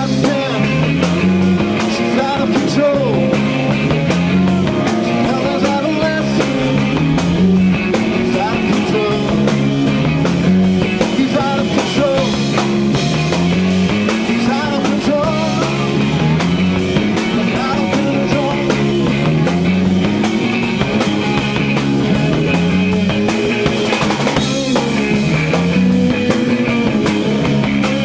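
Live rock band playing: electric guitars, bass guitar and drum kit. The bass repeats a short rising figure about every two seconds over steady drumming.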